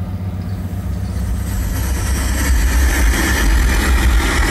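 Bass-heavy music played loud through a car audio system's Carbon Audio subwoofer, the deep bass dominating the sound. It gets louder about halfway through.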